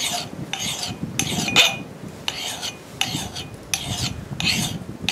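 Fine side of a hand file scraping in short strokes across the steel bit of a Council Tool boys axe, about two strokes a second. The filing takes the factory grind marks off the bit to reshape the edge.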